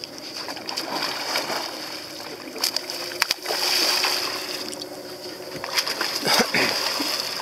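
Water splashing as a hooked black marlin thrashes and leaps at the surface, with sharp splashes in the middle and again near the end over a steady hiss.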